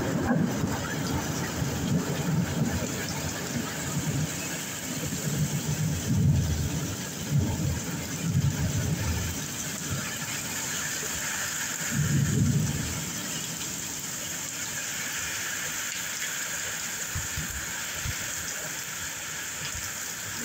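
Steady rain in a thunderstorm, with low rumbles of thunder swelling and fading through the first half and once more about twelve seconds in.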